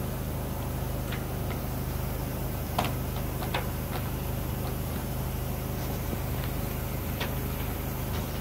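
Steady low mechanical hum, with a few scattered light clicks and taps from handling at the plastic dryer vent hood, the sharpest about three seconds in.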